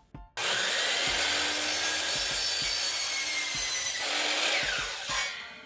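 Electric chop saw starting suddenly and cutting a 45-degree angle through a wooden board, with a steady motor whine. Near the end its whine falls as the blade spins down.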